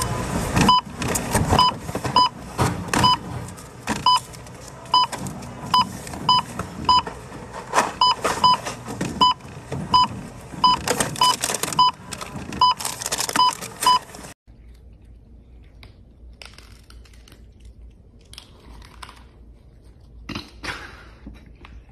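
A checkout barcode scanner beeps again and again as items are passed across it, amid clatter and rustling of packaging. About 14 seconds in it cuts off suddenly to much quieter crunching of cats eating dry kibble.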